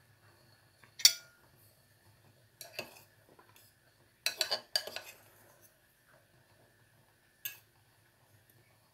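Metal fork clinking and scraping against a pot while it turns rice dumplings in the hot water. There is a sharp clink about a second in, a few more near three seconds, a quick run of clinks around four and a half seconds, and a last one near the end.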